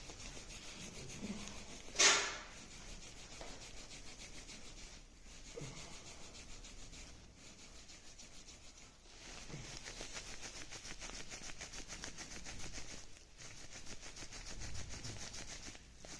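Hands rubbing talcum-powdered skin in quick repeated strokes, making a steady dry swishing that breaks off briefly every few seconds. A single sharp knock comes about two seconds in.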